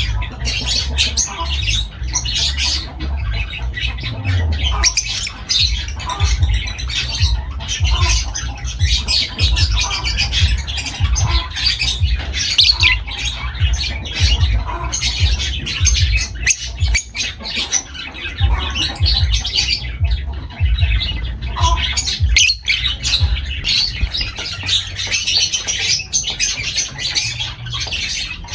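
Lovebirds chattering and squawking: a dense, unbroken run of short shrill calls from several birds, over a low rumble.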